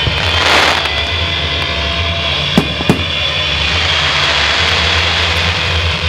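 Public firework display: a steady, loud rumble of launches and bursts, with a short hissing whoosh about half a second in and two sharp bangs a third of a second apart near the middle.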